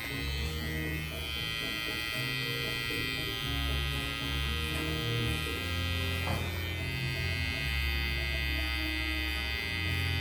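Babyliss Pro FX One cordless hair clipper running steadily with a high buzz, its pitch dipping and recovering briefly about six seconds in.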